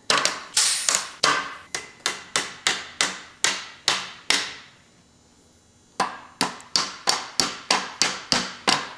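Rapid metal-on-metal strikes, each ringing briefly, from tools worked against the tight exhaust valve springs and keepers in a Willys 134 F-head engine block, with a valve spring compressor. Two runs of about ten strikes each come at two to three a second, with a pause of about a second and a half in the middle.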